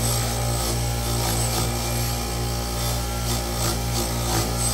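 Bench grinder fitted with a wire wheel running with a steady motor hum, as a small metal part is held against the spinning wire brush: an uneven scratching that swells and fades as the part is pressed in and turned.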